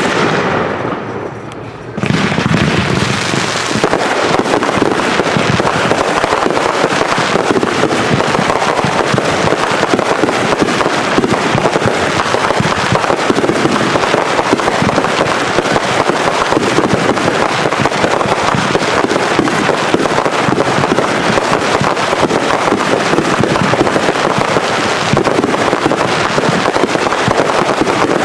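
Backyard consumer fireworks: about two seconds in, a dense, continuous barrage of rapid crackling and popping starts and keeps going without a break.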